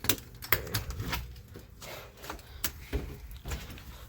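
A brush scrubbing grime off a lawnmower: irregular scratchy strokes mixed with sharp clicks and taps.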